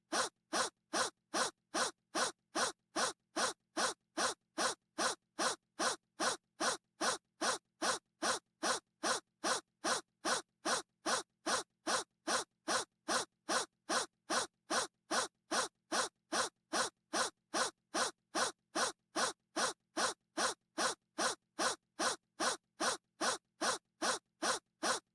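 A person's short gasp repeated over and over in an even loop, a little over two a second, with a brief silence between each.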